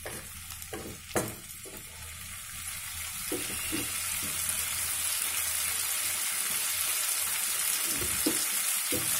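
Masala-coated chicken sizzling as it fries in oil in a stainless steel pan, growing louder over the first few seconds. A few short knocks of a spatula against the pan come near the start and again near the end.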